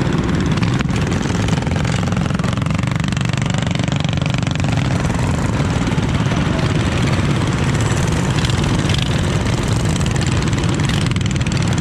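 Small single-cylinder minibike engine running steadily at an even pace.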